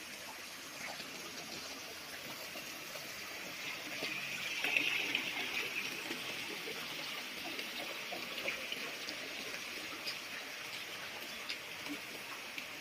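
Water spraying from a pipe and splashing into a fish pond: a steady splashing hiss that grows louder about four to six seconds in, then eases.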